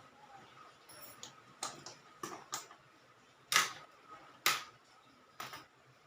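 A series of sharp metallic clicks and knocks, about eight spread irregularly, the loudest about three and a half and four and a half seconds in: the brass fittings and hose couplings of a refrigeration manifold gauge set being handled and connected.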